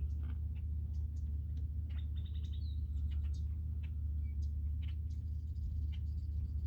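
Songbirds chirping and calling in short, scattered notes, with a quick run of chirps about two seconds in, over a steady low rumble.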